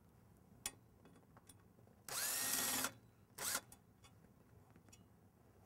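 Power drill with a Phillips bit backing a screw out of an aluminium pet-door frame: a sharp click, then the drill runs for under a second, its whine rising and falling, followed by a second short burst.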